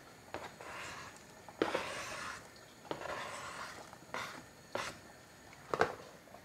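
Knife blade scraping diced boiled egg off a thin flexible cutting board into a soup pot: about three short scrapes, with a few light taps and clicks of the knife and board.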